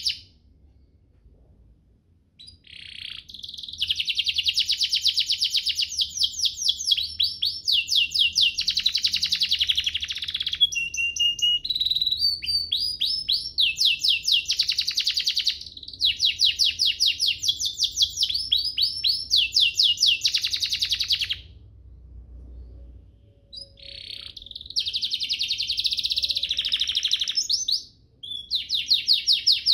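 Domestic canary singing a long song of fast trills and rolls, each run a rapid string of repeated notes. The song starts a couple of seconds in, breaks off briefly a little past two-thirds of the way through and again near the end, then resumes.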